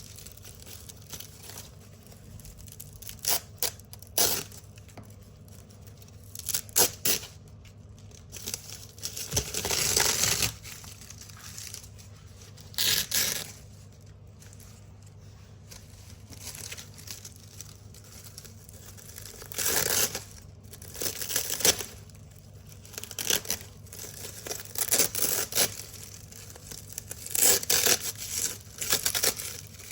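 Hook-and-loop (Velcro) strips being ripped apart from a large black roll: a series of crisp, crackling rips, some quick, some drawn out over about a second, at uneven intervals.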